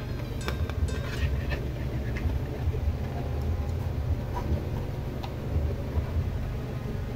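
Steady low rumble, with light plastic clicks and taps as a figure's foot pegs and its round plastic stand are handled, most of them in the first second and a half and a couple more in the middle.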